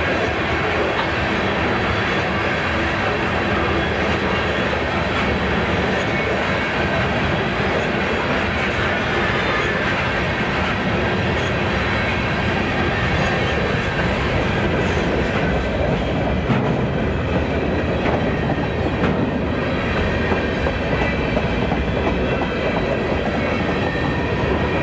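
A train rolling past on the track: a steady, loud noise of wheels on rail, with sharp clicks coming more often in the second half.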